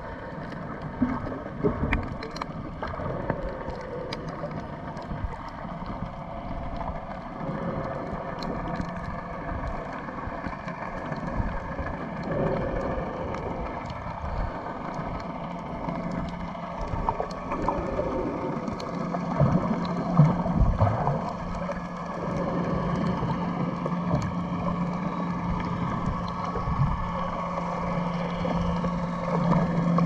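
Underwater water noise heard through a camera housing: a muffled, steady wash with scattered small clicks and crackles. About halfway through, a steady low hum joins in and holds to the end.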